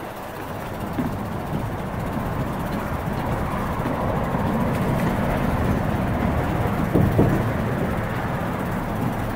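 Bicycle tyres rolling over the wooden plank deck of a steel truss footbridge, giving a rapid, continuous rattling rumble that grows louder, with a couple of sharper knocks about seven seconds in.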